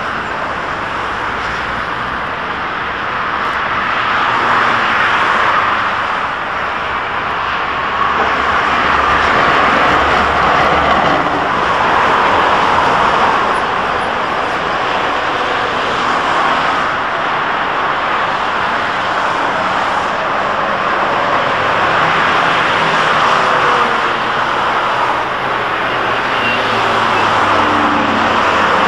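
Steady road traffic noise with an articulated electric tram passing close by. The sound grows louder a little way in as the tram nears.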